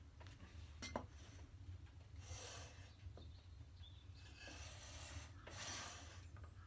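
Faint rubbing and scraping of a metal combination square and plywood as a plywood block is slid into line and marked on the bench: a small knock about a second in, then a few short scraping strokes.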